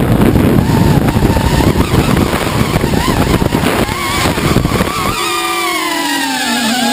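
A ZMR150 mini quadcopter's brushless motors and propellers whining, heard on board, with heavy wind noise on the microphone during a fast dive. From about five seconds in, the motor whine comes through clearly as several tones sliding down in pitch as the throttle eases off near the ground, then rising again at the very end.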